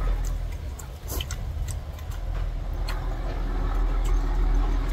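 Irregular crisp clicks and crunches of someone eating crunchy mango, over a steady low rumble.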